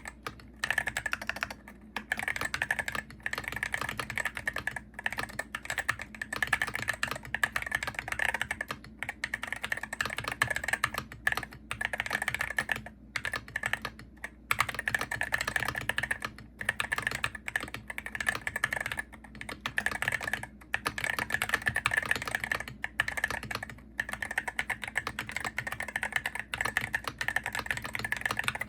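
Fast, continuous typing on a Hero68HE gaming keyboard: a rapid stream of keystrokes broken by short pauses every second or two.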